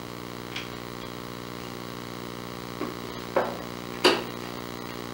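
Short sharp wooden clacks as a ring-necked parakeet pulls and bites at the little drawers of a small wooden cabinet. There are two faint clacks early, then two louder ones about three and a half and four seconds in, over a steady electrical hum.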